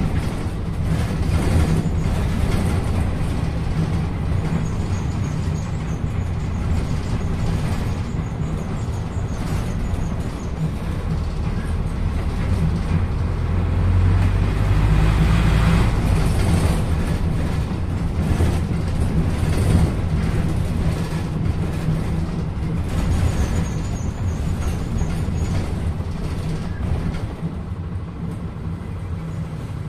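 A 2014 PAZ-320402-05 bus driving, heard from inside the cabin: a steady engine drone with road noise that grows louder in the low end for a few seconds around the middle.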